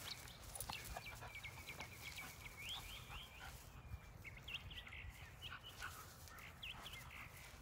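Birds chirping, a scattered run of short, high chirps over faint low rumble.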